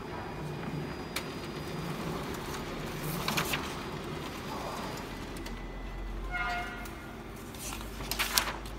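Konica Minolta bizhub C658 colour copier running with a steady hum that deepens about halfway through, while printed sheets are handled and rustled at its output tray. A brief tone sounds about six and a half seconds in.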